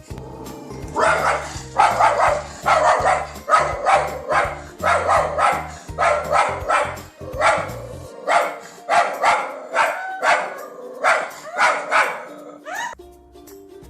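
A dog barking repeatedly, about two sharp barks a second, over background music: typical of a dog barking at its own reflection in a mirror.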